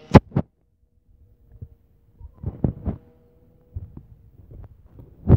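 Irregular low thumps buffeting the microphone, with two sharp loud knocks just after the start and softer clusters later on.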